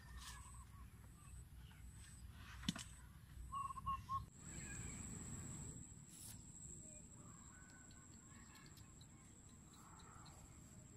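Quiet outdoor ambience with faint bird calls. A few light clicks from the plastic bottle trap being handled come in the first four seconds, and a steady thin high whine starts after that.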